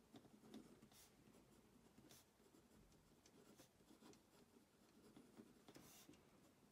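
Very faint, irregular scratching of a Pilot Custom 823 fine-nib fountain pen writing on Rhodia notepad paper, stroke by stroke.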